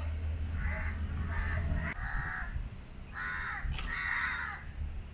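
Crow cawing, about five caws in a row, over a low rumble that fades out about two seconds in.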